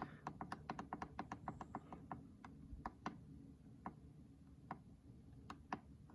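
Repeated clicks of the minutes button on a Keurig K Duo coffee maker's control panel, pressed over and over to cycle the clock's minutes. The presses come quickly at first, then slow to scattered single clicks after about two seconds.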